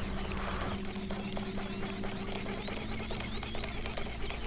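Birds chirping in a quick repeated series over a steady low hum, with scattered light clicks.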